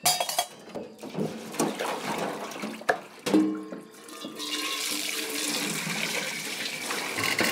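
A few sharp knocks, then from about halfway a steady rush of running water.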